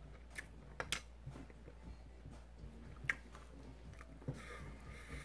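Quiet close-miked chewing of a mouthful of food, with a few soft, sharp mouth clicks, the clearest about three seconds in.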